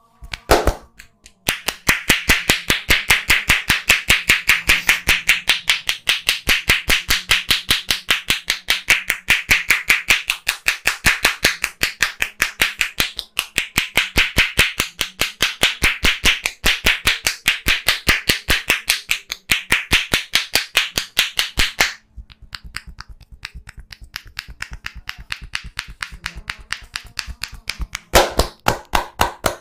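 Percussive head massage: a barber's hands strike the head in a rapid, even rhythm, about five loud slaps a second. About three-quarters of the way through, the strikes turn lighter and quicker for several seconds, then go loud again.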